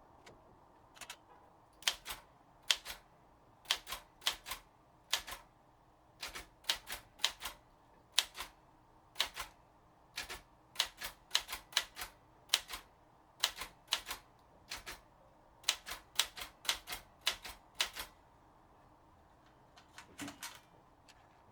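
Underwood 315 portable typewriter being typed on: sharp, unevenly spaced key strikes, about two a second, then a pause and a short quick cluster of clicks near the end.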